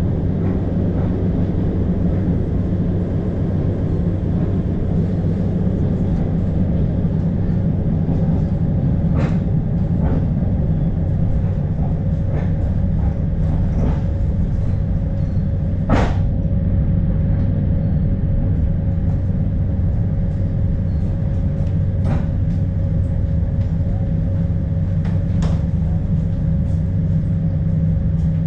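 Passenger train running along the line, heard from inside the carriage: a steady rumble of wheels on rail with a low hum, broken every few seconds by sharp clicks and knocks. A steady whine comes in about halfway through.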